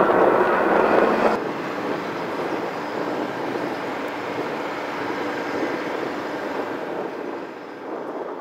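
A tugboat's engine running with a steady drone across the water. It follows the end of background music about a second and a half in.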